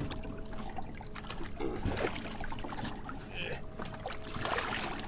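Water sloshing and splashing beside a small fishing boat as a big hooked redfish is played out at the surface, with a louder rush of splashing about four seconds in.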